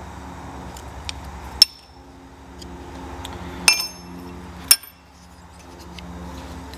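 Metal hand tools and parts clinking against each other: three sharp clinks with a brief metallic ring and a few lighter ticks, over a steady low hum.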